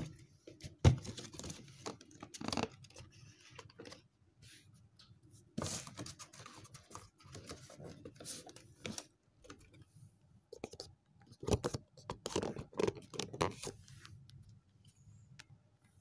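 Cardboard headphone box being opened and its paper inserts handled: irregular scraping, rustling and tapping of card and paper, with a sharp knock about a second in.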